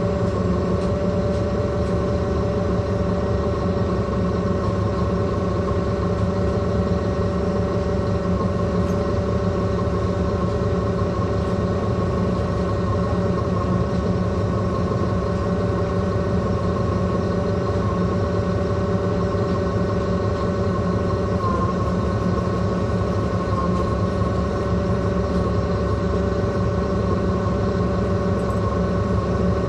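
2009 NABI 416.15 transit bus with a Caterpillar C13 ACERT diesel running at a steady speed: an even engine drone with a steady whine from the axle.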